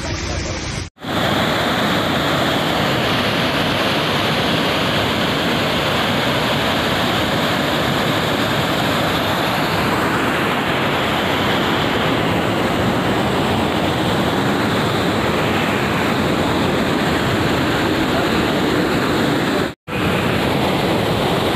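Fast-flowing floodwater rushing past, a loud steady wash of water noise. It breaks off twice for a moment.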